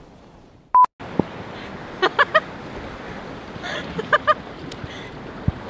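A short, loud single-pitch beep, then steady outdoor wind and surf noise by the sea. Two quick runs of three short pitched sounds come through the noise, one about two seconds in and one about four seconds in.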